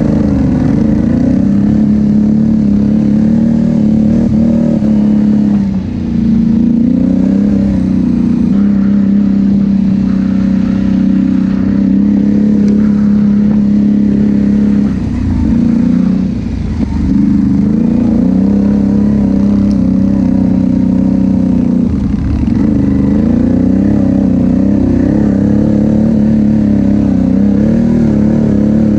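CF Moto X10 1000 ATV's V-twin engine running steadily under throttle while riding, its pitch wavering as the throttle changes. It eases off briefly three times, about 6 s, 16 s and 22 s in.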